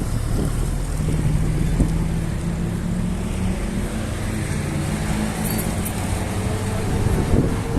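A motor vehicle's engine running close by, a steady low hum over street noise.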